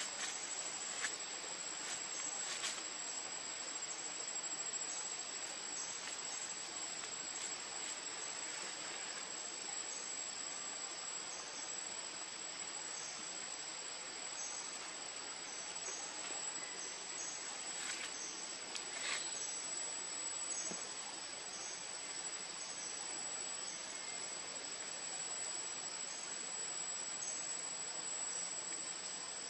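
Steady insect chorus: a continuous high-pitched whine with a fainter chirp repeating a little under twice a second beneath it. A few brief clicks stand out, about two seconds in and again near the middle.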